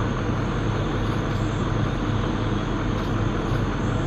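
Truck engine idling steadily, with a constant low hum. A thin, steady high-pitched drone sits above it.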